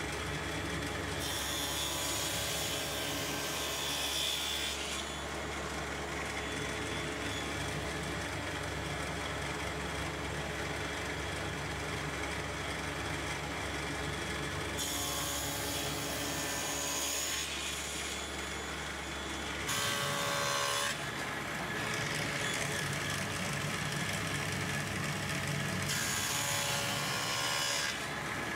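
Table saw running, its blade cutting a walnut board several times as the crosscut sled is pushed through, the cutting noise rising over the steady motor hum with each pass.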